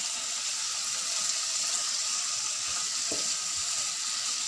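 Beef liver sizzling steadily in oil in a nonstick kadai as it is stirred with a wooden spatula: an even frying hiss.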